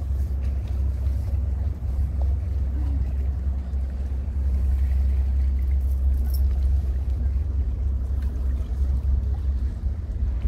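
Steady low rumble of wind buffeting the microphone, with faint open-air background noise above it.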